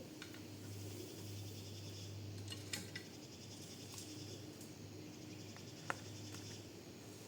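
Faint outdoor ambience of insects chirring steadily in a high register, over a low steady hum, with a few sharp clicks, the loudest about six seconds in.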